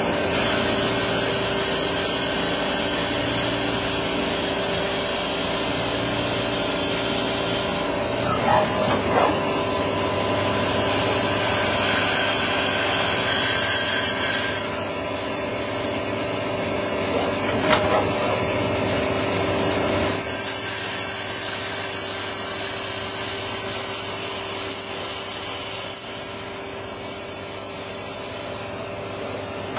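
CNC lathe turning a metal bar: a steady machine hum with a high-pitched hiss of the tool cutting, which comes in three stretches. The loudest cut is about 20 to 26 seconds in, then the cutting stops and only the quieter machine hum is left.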